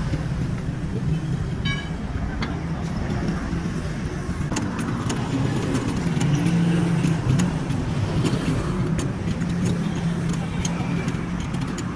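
A vehicle engine running steadily, with scattered light clicks and knocks over it.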